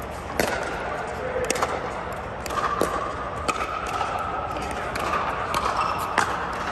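Pickleball paddles striking the plastic ball: sharp, short pocks every second or so, in a large indoor dome, with voices in the background.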